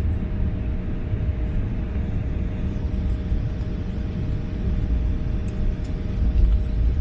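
Jet airliner's engines and wheels heard from inside the cabin as it taxis and turns onto the runway: a steady low rumble with a constant whine over it.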